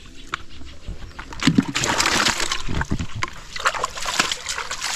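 Shallow pond water splashing and sloshing, fairly quiet at first and then loud and continuous from about a second and a half in, with many small splashes.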